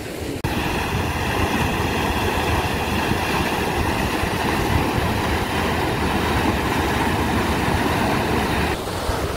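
Fast canal water rushing and churning as it pours down a concrete drop in a lined channel, a steady loud rushing that starts abruptly about half a second in.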